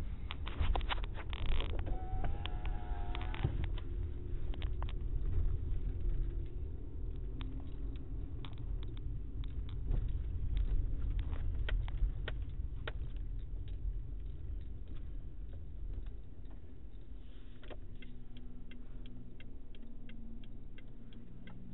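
Open telephone line while the call waits on hold: low rumbling line and background noise heard through the phone, with scattered clicks. Near the end a steady ticking sets in, about two to three ticks a second.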